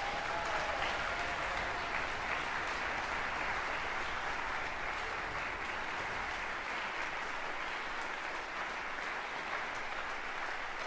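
Audience in a concert hall applauding steadily.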